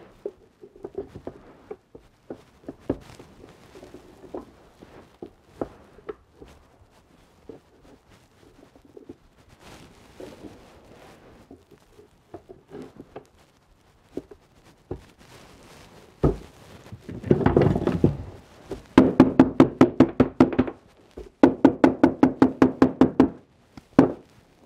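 Wooden beehive frame parts clicking and clacking as they are set into a wooden assembly jig. Later come a loud knock, then two runs of rapid, even tapping on the frames to seat the bars, ringing through the wooden box, and a last knock near the end.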